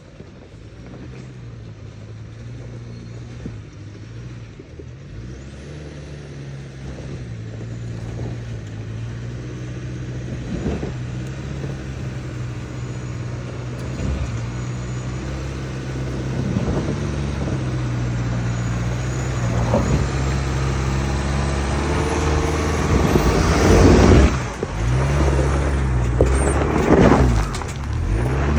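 Turbocharged truck engine pulling under load, its turbo whistling as a thin high tone that rises with the revs. The engine builds gradually and peaks a little past two-thirds of the way through, then drops off abruptly and surges once more near the end.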